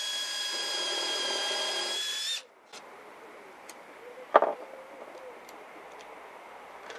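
Makita 18 V cordless drill driving a screw into plywood: a steady motor whine for about two and a half seconds that cuts off suddenly as the screw seats. A single sharp knock follows about four seconds in.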